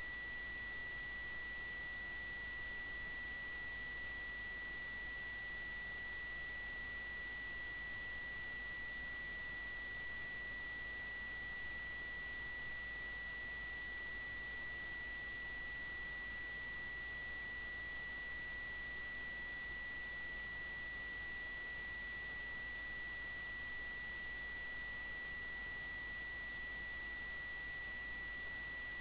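Steady, unchanging high-pitched electronic whine with several overtones, over a low hiss.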